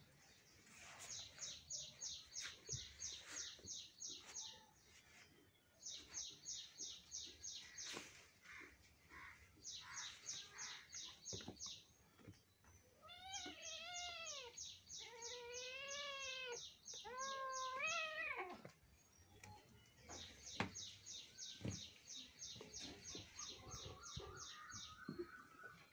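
Kitten meowing three times in quick succession about halfway through, each call rising then falling in pitch. Around it, a small bird chirps in rapid trains of about seven high chirps a second, starting and stopping several times.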